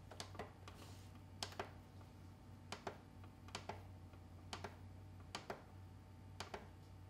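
Acer monitor's front-panel buttons clicking under a finger: about seven quick double clicks, roughly one a second, faint over a low steady hum.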